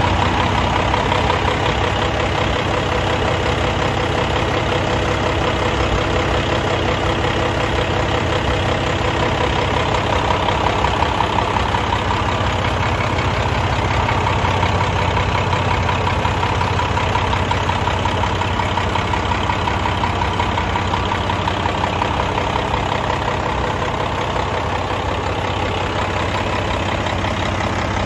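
Underfloor diesel generator engine of a KiHa 183 series diesel railcar running steadily, heard close to the engine and its turbocharger. The engine is making electricity for the train's onboard power.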